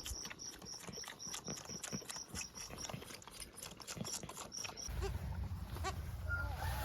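Boer goat kid bleating, over a fast, even ticking that stops about five seconds in, when a low rumbling noise begins.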